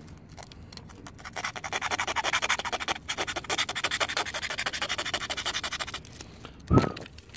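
Sandpaper (150 grit) rubbed by hand over a painted steel scooter frame tube in quick back-and-forth strokes, several a second, scuffing off paint and surface rust. The strokes begin about a second in and stop about a second before a brief thump near the end.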